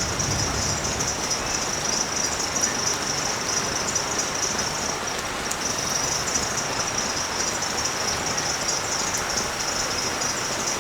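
Steady rain falling on a street, an even, unbroken hiss, with the low rumble of thunder dying away in the first second.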